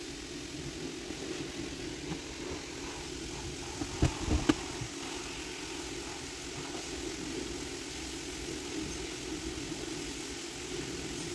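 Car engine idling with a steady hum. A few loud knocks come about four seconds in.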